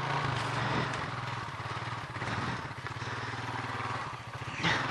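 Honda four-wheeler's engine running steadily at low revs.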